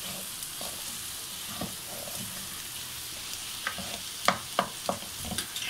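Wooden spoon stirring and scraping boiled potato chunks in hot oil in a metal pan, over a steady frying sizzle. A few sharper knocks of the spoon against the pan come in the second half.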